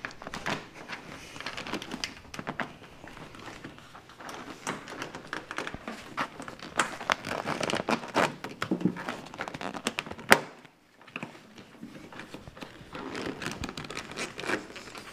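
Rustling and crinkling of a convertible boot being handled and pressed down, with many small clicks as its edge clips are pushed over the body trim. One sharp click about ten seconds in is the loudest sound.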